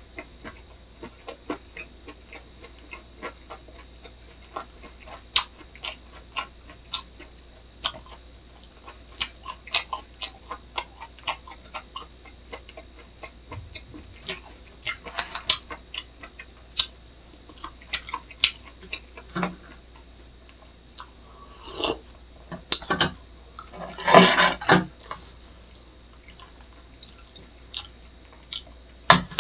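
Close-up chewing of a mouthful of pork belly lettuce wrap with raw garlic, chili and onion: irregular wet mouth clicks and soft crunches, about one or two a second, with a few louder bursts in the last third.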